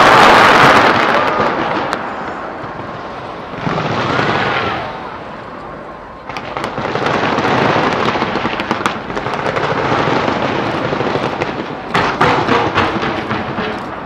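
Fireworks display: a dense rush of crackling and popping bursts, loudest at the start, easing off around the middle, then building again, with a run of sharp separate cracks near the end.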